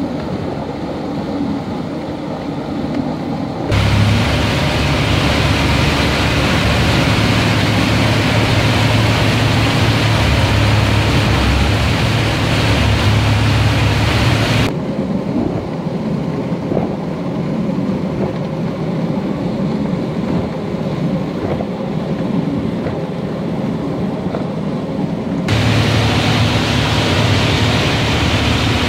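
Rice drying plant machinery running: a steady low hum under a wide rushing noise. The noise changes suddenly in level and tone about four, fifteen and twenty-five seconds in.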